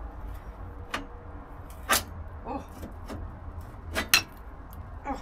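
Scattered sharp metallic clinks and knocks of hand tools and fixings against the car's front bumper brackets while its bolts are undone, a quick double clink about four seconds in the loudest, over a low steady hum.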